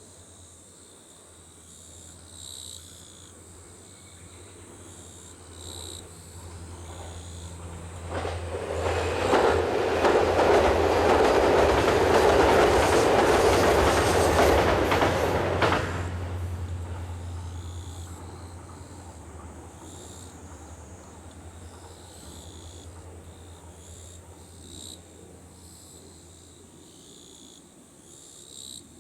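HC85 series hybrid diesel train approaching and passing at speed. The wheels run loud on the rails with some clickety-clack for about eight seconds, then the sound drops sharply and fades as the train moves away, with a low steady hum under it all. Insects chirp faintly in the background.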